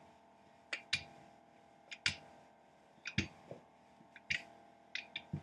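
Rolling pin rolling out Danish pastry dough, giving irregular clicks and knocks, about one or two a second, some with a dull low thud.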